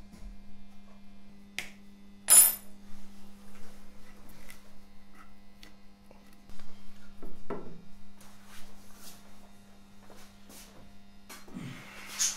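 Scattered small clicks and knocks of tools and objects being handled at a workbench, with a sharp metallic clink about two seconds in and a duller knock around seven and a half seconds, over a steady low hum.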